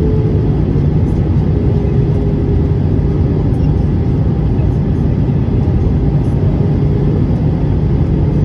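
Cabin noise of an Airbus A320-family airliner heard at a window seat on descent: a steady rumble of the jet engines and rushing air, with a droning tone that dips a little in pitch in the first second.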